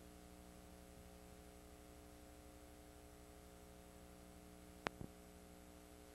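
Near silence: a faint steady electrical hum with light hiss from a paused VHS tape playback, broken by two sharp clicks close together about five seconds in.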